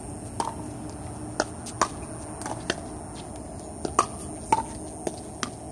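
Pickleball paddles striking a plastic pickleball in a rally: a string of sharp hits at uneven spacing, about one every half second to a second, the loudest about four and four and a half seconds in.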